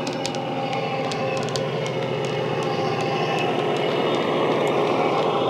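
Dapol Class 68 model's Coastal DCC sound decoder playing a Class 68 diesel engine (Caterpillar C175) running under power through a large EM2 speaker, with deep bass and scattered light clicks from the wheels on the track. It gets louder near the end as the locomotive passes close by.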